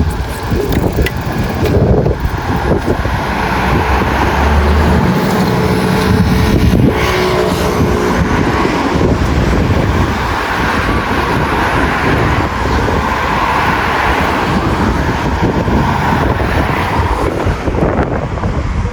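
Street traffic passing, mixed with wind buffeting the microphone, in a steady loud rumble.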